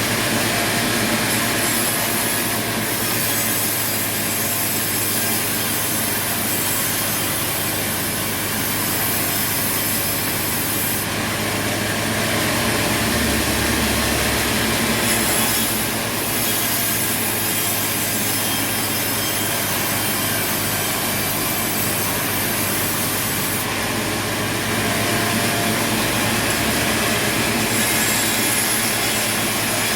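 Sawmill saw blade cutting through wood, with the machine's motor running steadily underneath; the high hiss of the cut comes and goes every several seconds.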